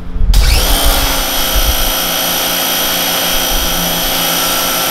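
Small electric pressure washer (HOMDOX 2000/2600 psi) in use. Its pump motor cuts in abruptly just after the start and runs with a steady high whine under the hiss of the water jet hitting the body panels. The pump runs only while the trigger is pulled.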